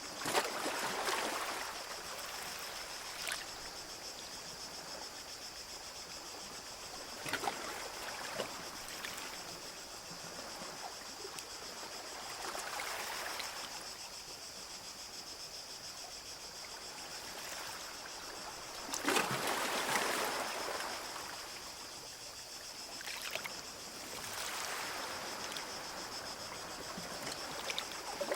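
Small sea waves washing onto a beach, a swell of surf every five or six seconds, over a steady high hiss.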